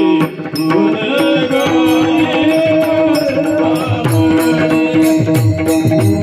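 Marathi devotional kirtan music: a steady held tone under regular drum beats and evenly spaced jingling cymbal strokes, with a brief dip in loudness just after the start.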